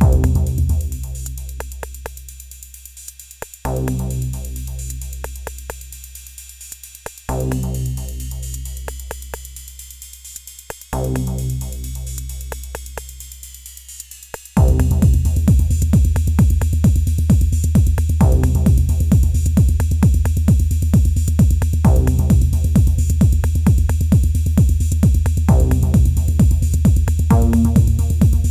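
Elektron Analog Rytm drum machine playing improvised techno. The steady kick drum beat drops out just after the start for a breakdown of long, fading bass hits every few seconds under ticking hi-hats, with a tone that rises and falls in the middle. About halfway through, the full kick beat comes back in suddenly.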